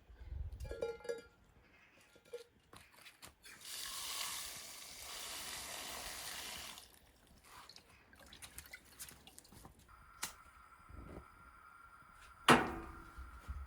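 Water running for about three seconds, like a tap filling or rinsing at a sink, amid scattered light clinks, with one sharp knock near the end.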